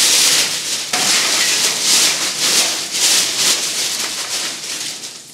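Loud, rhythmic scraping strokes, about three a second, that start abruptly, with a short break about a second in.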